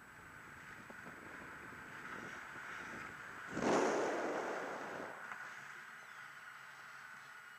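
Air rushing over the microphone of a paraglider's onboard camera during a turn, swelling to a loud gust about three and a half seconds in and then easing off.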